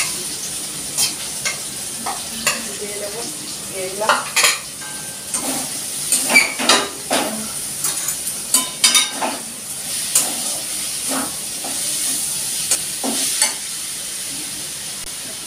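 Pre-fried vegetables stir-frying in hot oil in a metal kadai, with a steady sizzle. Over it a metal spatula scrapes and clinks against the pan in short irregular strokes, busiest in the middle.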